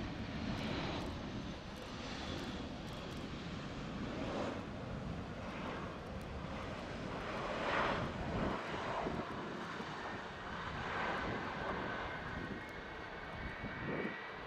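Boeing C-17A Globemaster III's four Pratt & Whitney F117 turbofans running at taxi power as the jet taxis: a steady rumble with a faint high whine over it.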